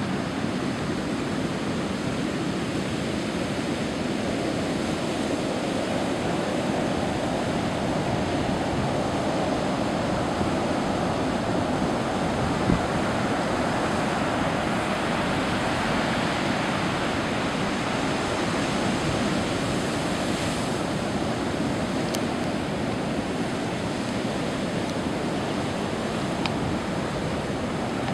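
Heavy post-hurricane surf breaking and washing up the beach in a steady, continuous rush of water noise, with one brief knock about halfway through.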